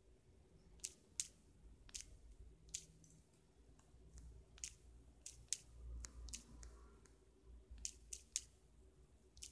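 A dozen or so faint, sharp taps on a smartphone's touchscreen keyboard as digits are keyed in, coming irregularly in small quick groups over near silence.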